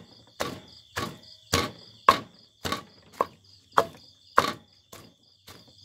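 Pestle pounding in a mortar at about two strikes a second, mashing grilled frog, galangal, shallots and garlic into jaew bong chili paste. Insects chirp steadily behind it.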